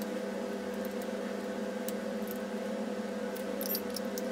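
Steady hum with a few faint metallic clicks and ticks, most of them about three and a half seconds in, as an 8 mm hex key works the steering-stem fixing bolt loose on a Mantis electric scooter's front column.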